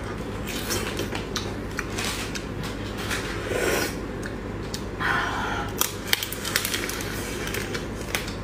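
Wet sucking and slurping at a raw-marinated tiger prawn's head, with scattered sharp clicks and crackles as the shell is pulled apart. There are two longer slurps, about three and a half and five seconds in.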